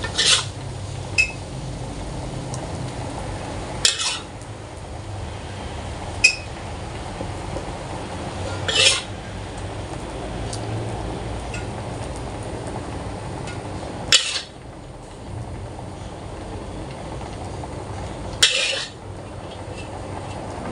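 Metal spatula scraping and scooping fried rice vermicelli out of a wok onto a plate: about five scrapes a few seconds apart, with two short metal clinks between them, over a steady background rush.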